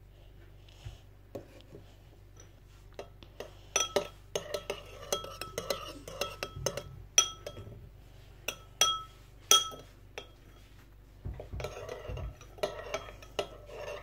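A metal spoon stirring yogurt and sugar in a small glass bowl, clinking irregularly against the glass with short ringing chinks. It starts about four seconds in, with a stretch of quicker scraping and clinking near the end.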